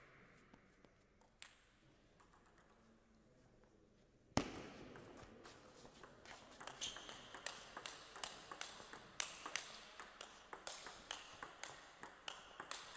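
Table tennis rally: a ball clicking off the paddles and the table in a quick, steady back-and-forth. It starts about four seconds in with a sharp thud, and before that there is only a single light tap.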